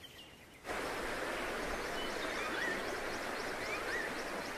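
Steady rush of a river's flowing water, starting suddenly under a second in, with a bird giving short wavy whistled calls a few times over it and faint high chirps.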